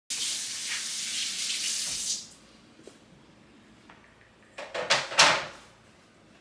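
Kitchen faucet running: a steady rush of water for about two seconds, then a few short, loud gushes about five seconds in as a kettle is filled at the sink.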